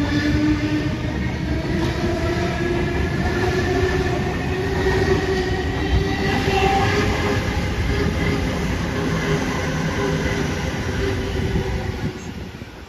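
Sydney Trains Waratah B-set double-deck electric train passing close by, with wheels running on the rails and a motor whine that rises gently in pitch as it picks up speed. The sound fades near the end as the train draws away.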